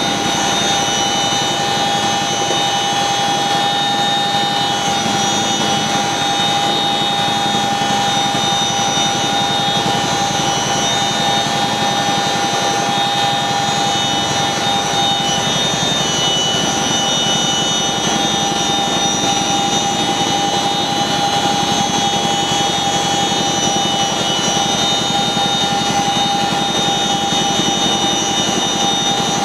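Boeing CH-47 Chinook heavy-lift helicopter hovering, heard from inside the cabin at the cargo-hook hatch: loud, even rotor and turbine noise with a steady high whine on top.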